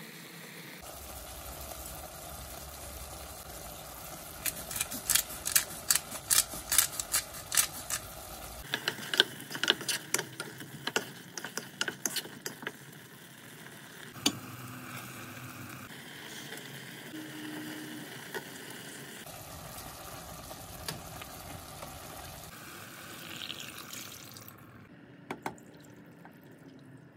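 Onions and tomatoes cooking in a nonstick pot, with a wooden spatula stirring and knocking against the pot in a run of sharp clicks in the middle, across several short cuts.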